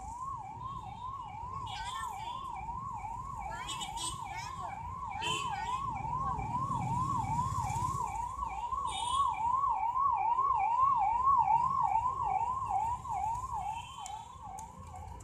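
Emergency vehicle siren in a fast yelp, a quick rising sweep repeated two to three times a second. It grows louder late on and fades near the end.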